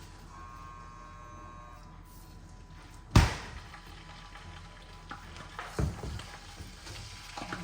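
Faint background music with one sharp, loud knock about three seconds in, followed by a few softer thumps.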